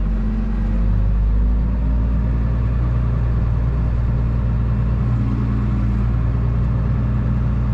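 Case IH MXM 155 tractor's diesel engine running steadily under load while pulling a plough.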